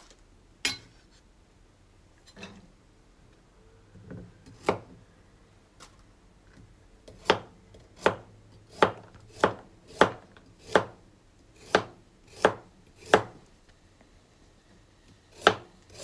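Kitchen knife slicing carrots into rounds on a plastic cutting board, each cut ending in a sharp knock of the blade on the board. A few scattered cuts come first, then a steady run of about one and a half cuts a second for several seconds, a pause, and more cuts near the end.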